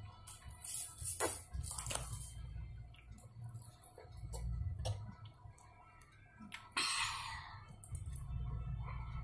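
Eating sounds over a noodle bowl: scattered clicks of utensils and chewing, with a short noisy burst about seven seconds in, over a low steady hum.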